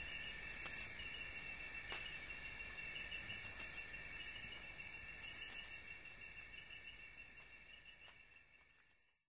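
A faint, steady chorus of chirping insects, with a brighter high trill about every two seconds and a few soft knocks. It fades away and cuts to silence near the end.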